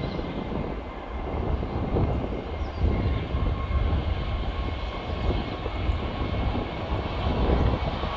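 CFM56-7B jet engines of a departing Boeing 737-800 on the runway: a steady rumble with a thin high whine running through it.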